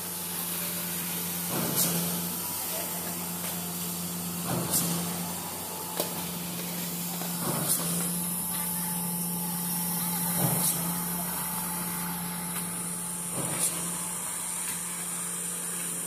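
Concrete pump running steadily while wet concrete is pumped through its discharge hose, with a sharp thump about every three seconds as each pump stroke pushes a surge of concrete through the line.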